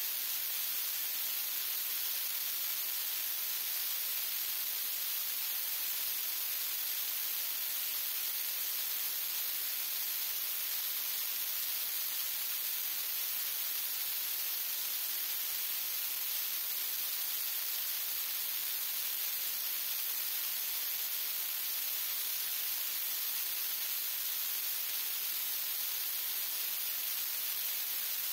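Steady, even static hiss with no other sound and no change in level.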